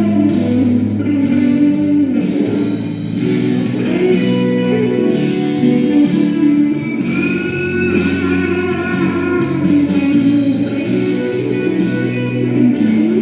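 Electric guitar playing a rock melody, with sustained notes and a few bent notes about halfway through.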